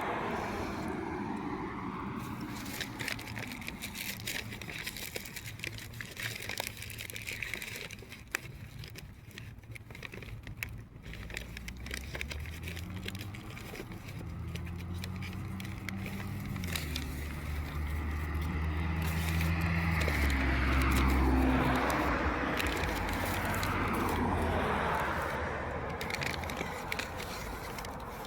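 Street traffic passing: a vehicle goes by at the start with a falling pitch, then an engine pulls away, its low note climbing and dropping back through several gear changes, loudest about two-thirds of the way in, as more vehicles pass.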